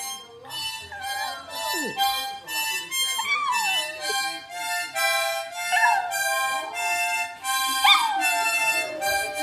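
Harmonica playing steady chords while a dog howls along, four rising-and-falling howls over the tune, the last one near the end the loudest.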